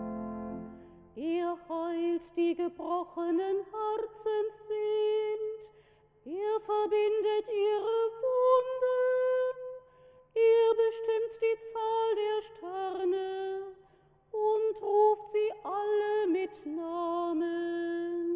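A woman singing solo and unaccompanied, in four phrases with short breaths between them: a cantor chanting the responsorial psalm at Mass. An instrument's held chord fades out in the first second.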